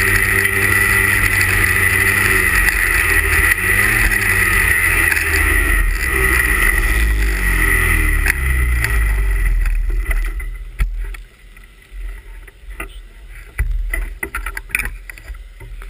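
A 340 cc two-stroke race snowmobile engine runs steadily at low speed, with a brief rise and fall in revs about four seconds in. It cuts off about ten seconds in, leaving only scattered faint clicks.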